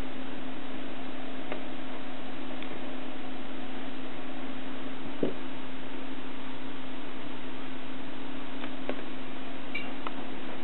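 A homemade Geiger counter with a Philips ZP1600 tube giving a few faint, irregularly spaced clicks, about seven in ten seconds, typical of background radiation counts. Under the clicks is a steady hiss and a steady low hum.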